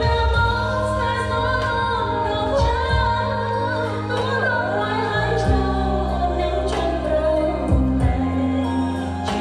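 A song playing, with a woman singing over a backing track of held bass notes.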